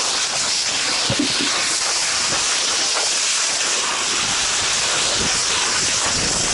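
Fire hose nozzle spraying a wide fog of water, a steady hiss.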